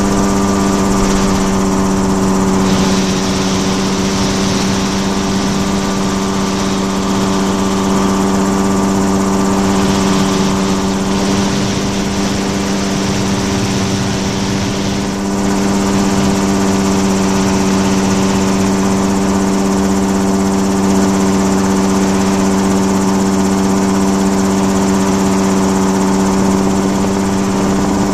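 Engine and propeller of the aircraft carrying the camera, running at a steady pitch in flight, heard from on board with a hiss of passing air.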